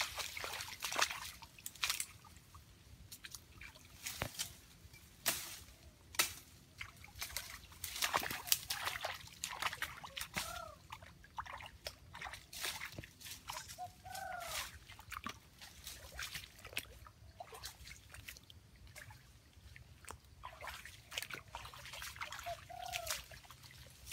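Sharp clicks and snaps of a knife cutting a thin stick and of brush being pushed through, with wet, squelching footsteps on a muddy path. A few short rising-and-falling animal calls come through, one near the middle and one near the end.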